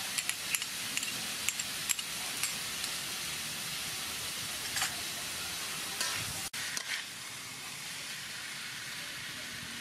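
Squid and green peppercorns stir-frying in a hot wok: a steady sizzle with scattered pops and crackles over the first five seconds or so. The sizzle drops out briefly about six and a half seconds in, then carries on a little quieter.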